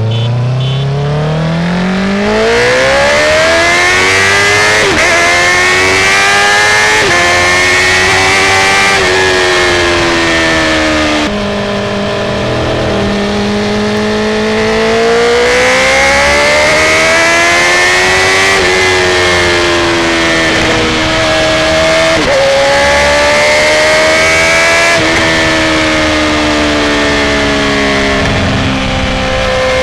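Motorcycle engine revving hard and climbing through the gears, its pitch rising and dipping briefly at each quick upshift, then easing off and pulling up again.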